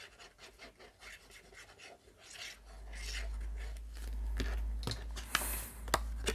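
Fingers rubbing quickly back and forth over paper and card, pressing a freshly glued fold flat. This is followed by paper handling, with a few sharp taps and a brief hiss near the end.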